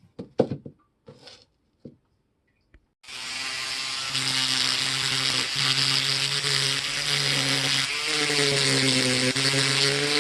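A few light clicks, then an electric power tool starts about three seconds in and runs steadily: a loud hiss over its motor hum, with the pitch wavering near the end.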